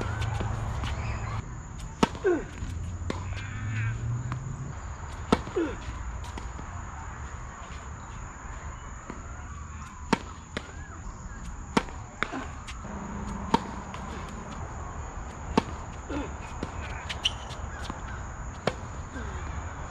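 Tennis ball hit by rackets and bouncing on a hard court: a few separate sharp pops early on, then a serve about halfway through and a rally of pops about a second apart.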